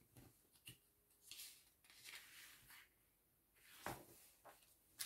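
Near silence with a few faint, brief rustles and a soft click: paper handling, such as magazine pages being turned.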